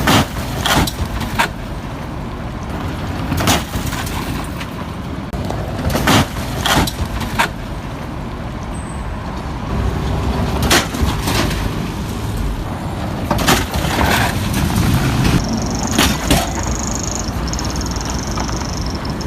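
Car driving over a rough, potholed road: a steady low rumble broken by about a dozen sharp knocks and bangs as the wheels hit bumps. A high steady tone comes in about three-quarters of the way through.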